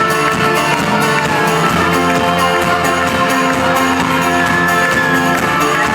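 Live folk-rock band playing an instrumental passage between vocal lines: fast, even strumming of acoustic guitar and banjo over held chords, loud and dense as heard from within the audience.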